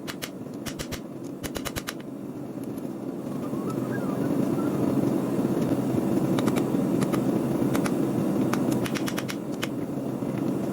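Steel being forged: short runs of quick hammer strikes on hot steel, several blows a second, over a steady low roar that grows louder about four seconds in.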